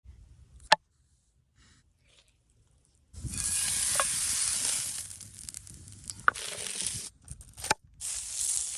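Food frying in hot oil: a single sharp click, then a loud sizzle that starts suddenly about three seconds in and slowly dies down, with a few sharp pops and a fresh burst of sizzling near the end.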